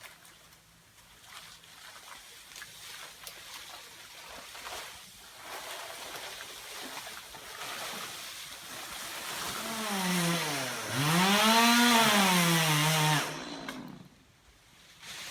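Chainsaw revving in one short burst, its pitch dipping, climbing and falling again, then cutting off abruptly about 13 seconds in. Before it come about ten seconds of faint rustling and small knocks.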